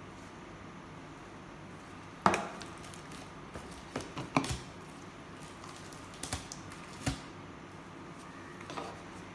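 Plastic reagent jars being handled and set down on a tabletop: a sharp knock about two seconds in, then several lighter knocks and clacks.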